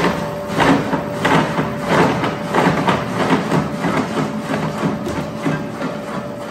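Urschel Diversacut 2110 industrial dicer running with a steady hum, with irregular knocks and crunches as chunks of squash are fed through its cutting knives.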